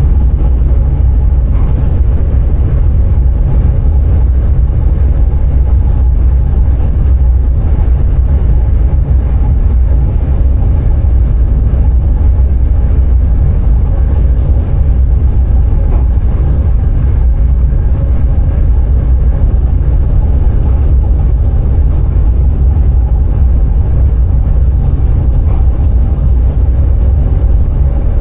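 Electric sprinter train running steadily, heard from inside the driver's cab: a loud, constant low rumble with a few faint clicks now and then.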